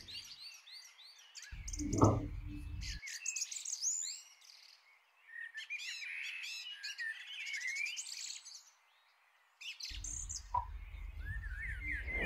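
Birds chirping and singing, a busy mix of short rising and falling chirps and whistles that cuts out briefly twice. There is a dull thump about two seconds in.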